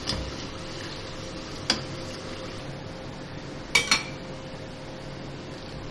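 Spring rolls frying in hot oil with a steady sizzle while a perforated metal skimmer lifts them out, clinking against the pan: a knock at the start, another about 1.7 seconds in, and a louder double clink a little before four seconds.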